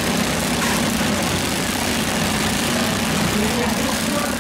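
Several garden tractor and riding mower engines running together in a steady mixed hum, with no single engine standing out.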